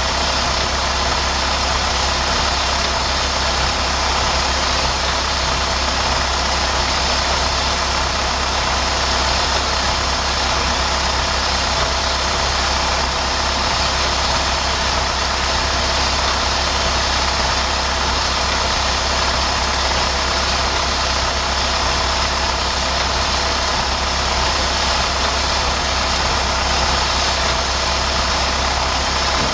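Diesel engine running at a steady speed, with no change in pitch or level.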